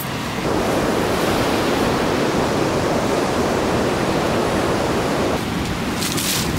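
Steady rush of ocean surf breaking on a sandy beach, easing back about five seconds in. Near the end come brief dry crackles of rustling.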